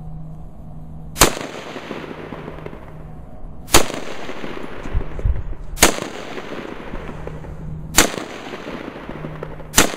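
DoubleStar AR-15 rifle fired five single shots, roughly two seconds apart, each followed by a long rolling echo that fades.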